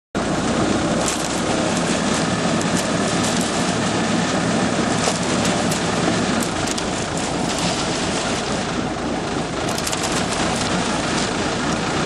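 Self-loading concrete mixer's diesel engine running: a steady, noisy rumble with scattered rattles and clicks.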